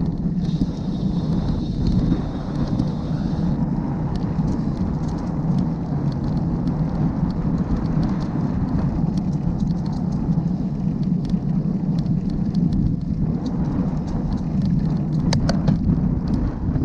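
Steady low rumble of wind buffeting and road vibration picked up by a handlebar-mounted GoPro Hero6 on a moving folding bicycle, with the camera's audio control set to wind-only reduction. Light ticks and rattles run through it, and a faint high hiss sounds for about the first three seconds.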